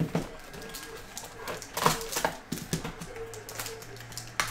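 Cardboard trading-card box and a plastic graded-card holder being handled, with a few sharp clicks and taps as the inner lid is lifted and the card is taken out.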